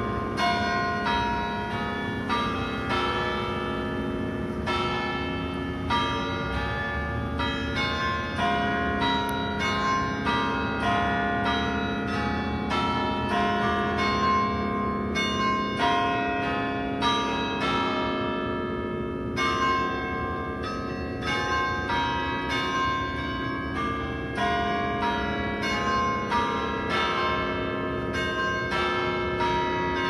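Church bells ringing in a continuous peal. Strikes come in quick succession, a few each second, and each one rings on into the next.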